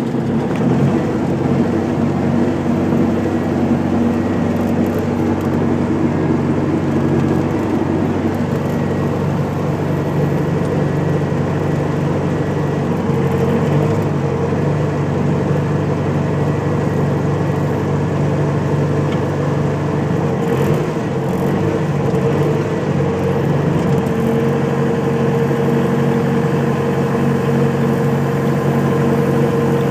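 Bobcat T300 compact track loader's diesel engine idling steadily just after a cold start in about 14 °F weather, heard from inside the cab.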